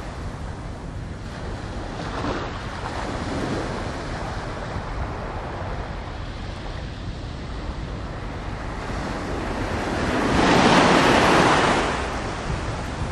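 Small waves washing against the shore, with wind rumbling on the microphone; a louder rush of water swells and fades about ten seconds in.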